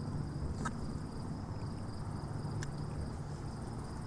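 Crickets chirping in a steady, unbroken high trill over a low background rumble, with a couple of faint ticks.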